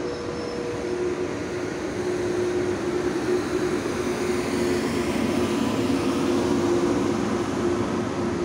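Intercity train of passenger coaches rolling slowly past through the station: a steady rumble with a held hum, swelling slightly about halfway through.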